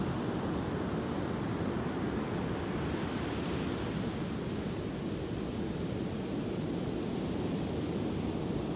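Ocean surf breaking and washing up a sand beach: a steady, deep wash of white water with no distinct single wave crash standing out.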